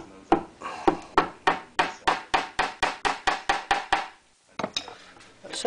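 A small hammer taps a pin into the wooden lid of a walnut writing box with about fifteen quick, light strikes that speed up slightly. The strikes stop about four seconds in, and a couple of lone knocks follow near the end.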